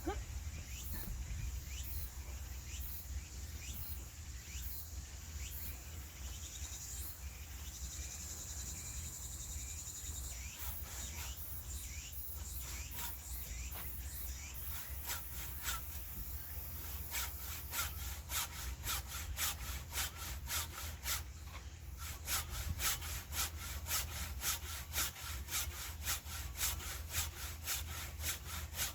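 Hand saw cutting through a log for firewood, stroke after stroke. The strokes are faint at first, then become strong and regular from a little past halfway, at about three strokes a second.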